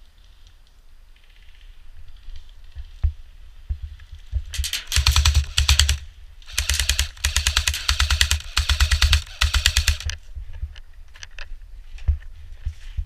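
Airsoft rifle firing on full auto in about four long bursts of rapid clicking shots, between about four and ten seconds in, with a few scattered knocks before and after.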